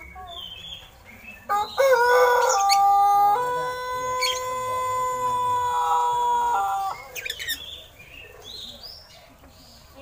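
A rooster crowing: one long, drawn-out crow of about five seconds, shifting in pitch at first and then held on one level note before breaking off. Faint short chirps from a caged oriental magpie-robin come before and after it.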